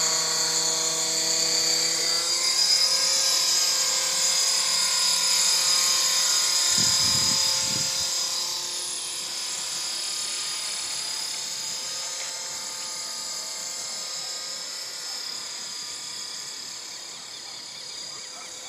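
Radio-controlled model helicopter's motor and rotor whining high, rising slightly in pitch about two seconds in and growing fainter in the second half as it flies away.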